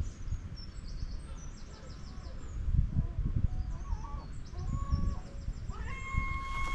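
Birds chirping in short high notes, with a held, steady call starting near the end, over a low rumble of outdoor noise on the microphone.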